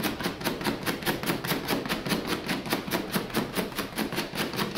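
Two wool-stuffed ink balls rapidly dabbed on a forme of lead type, inking it for printing on an 18th-century-style wooden hand press: a quick, even run of taps, about six or seven a second.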